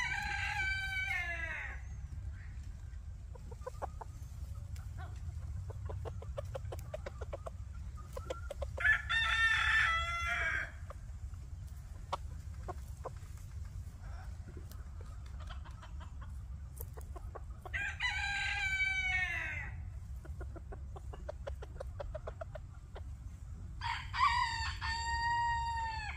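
Phoenix bantam rooster crowing, four crows of about two seconds each spaced roughly eight seconds apart, the first starting just at the beginning and the last running on at the end. A steady low rumble lies underneath.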